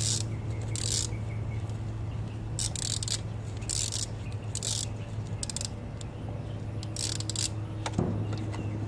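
Ratchet wrench clicking in short bursts, irregularly about once a second, while working a dirt bike's oil drain bolt. A steady low hum runs underneath, and a single sharp knock comes near the end.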